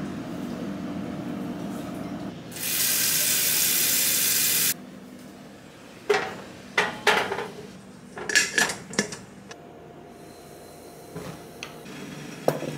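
Tap water running into a small stovetop kettle for about two seconds, then a run of sharp metal clinks and knocks as the kettle and its lid are handled. Near the end, a single clink of a ceramic bowl set down on a stone counter.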